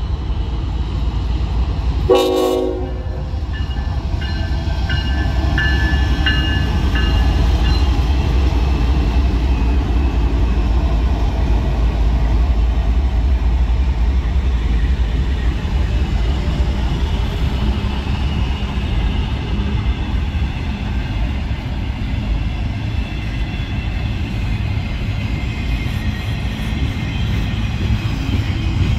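Norfolk Southern intermodal freight train passing close: the diesel locomotives' engines rumble by, then the container cars roll past with a steady rumble and clatter. A short loud blast comes about two seconds in, followed by a few seconds of intermittent high ringing tones.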